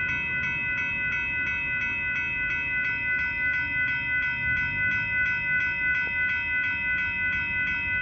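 Railroad grade-crossing warning bell ringing steadily at about three strikes a second, signalling an approaching train.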